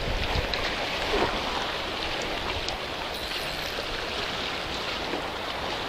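Small waves washing and lapping against rocks and a concrete jetty, a steady rush of water with a few faint ticks.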